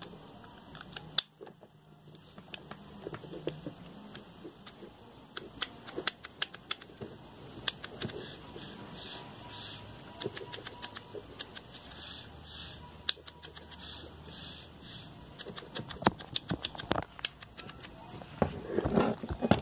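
Irregular small clicks and taps of metal and plastic fan-motor parts being handled and fitted by hand, in loose clusters, with a few sharper knocks near the end.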